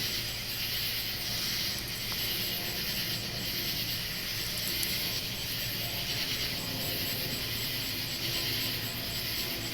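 Chorus of cicadas calling together: a steady, high-pitched hiss with a fast pulsing shimmer on top.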